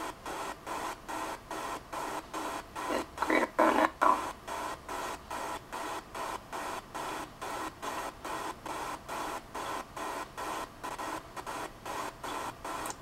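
Steady hiss pulsing evenly about four times a second, with one louder burst about three and a half seconds in.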